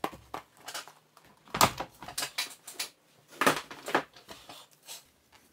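Shoes being handled and set down on a desk: irregular short knocks and rustles, clearest about a second and a half in and again around three and a half seconds in.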